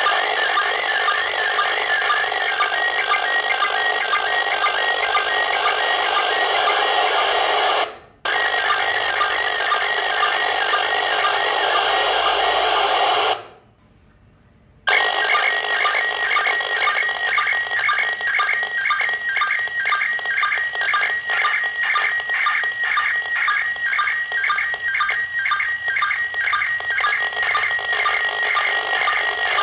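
Slow-scan television (SSTV) image signal from the International Space Station, received on FM and played through a radio's speaker: high, warbling tones with a regular beat of line-sync pulses under a hiss of noise. The signal drops out briefly about 8 seconds in and again for over a second around 13 to 15 seconds in.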